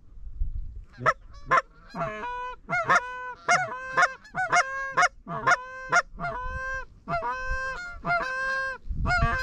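Canada goose honks in quick succession, starting about a second in: a string of short, sharp honks mixed with longer, drawn-out ones held at a steady pitch, roughly one or two a second.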